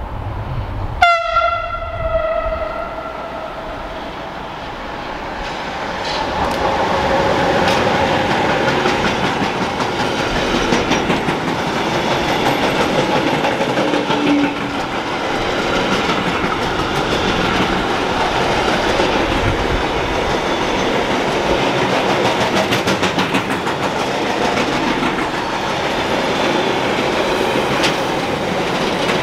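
A train horn sounds once about a second in, then a train runs past on the Brenner Railway with a steady rumble and wheels clattering over the rails.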